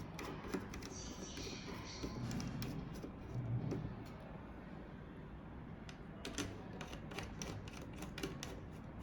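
Light clicks and handling sounds of small parts as an adapter board is pressed onto a hard drive's circuit board and its screws are fixed by hand, with a quick run of clicks about six to eight seconds in.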